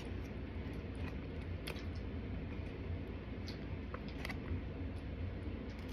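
A plastic fork clicking and scraping against a clear plastic takeout container, a few short sharp clicks spaced out over a steady low hum.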